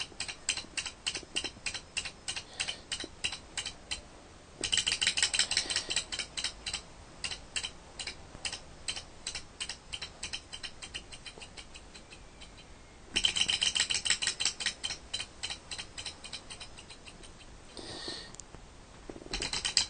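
Small thermoacoustic heat engine model running on its residual heat after the burner is put out, its moving parts clicking steadily about five times a second. The clicking grows louder twice for a couple of seconds, fades near the end, then comes back loud.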